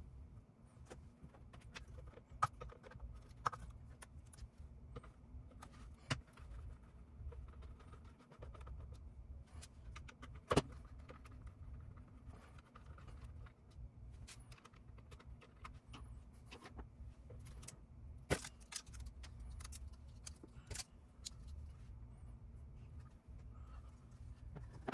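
Small metal and plastic parts and hand tools being handled during disassembly of an external GPU enclosure: scattered small clicks and light metallic clinks, a few sharper ones, over a faint low hum.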